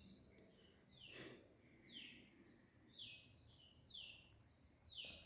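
Faint bird chirps in the background: short high calls sliding downward, repeating about once a second. A brief soft rustle comes about a second in.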